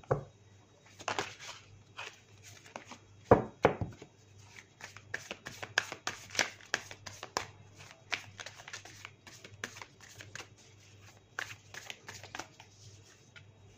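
A tarot deck being shuffled by hand: short runs of quick papery flicks and taps, the loudest about three seconds in.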